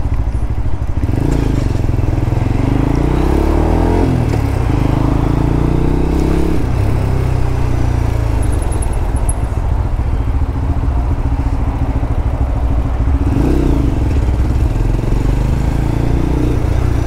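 Lexmoto LXR 125's single-cylinder 125 cc four-stroke engine running on the move. Its revs climb and drop a few times, with a sharp drop about four seconds in and another rise and fall near the end.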